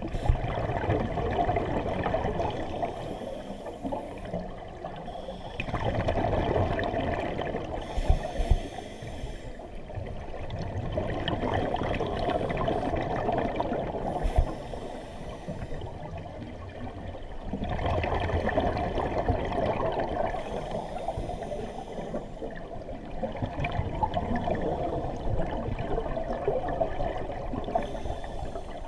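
Scuba diver breathing through a regulator underwater: short inhalation hisses and longer bursts of exhaled bubbles, the cycle repeating about every five to six seconds, with a few dull knocks.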